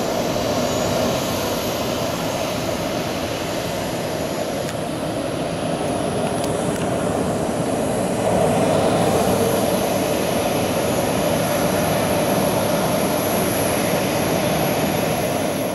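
Boeing 737-300's CFM56 turbofan engines running steadily: a dense jet rush with a thin high-pitched whine on top.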